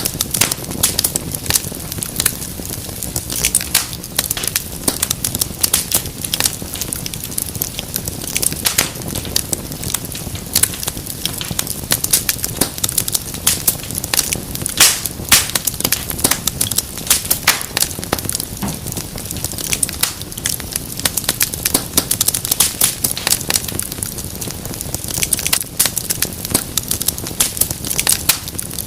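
Wood fire burning in a fireplace, crackling and popping steadily with many sharp, irregular snaps over a low, even rush of flames.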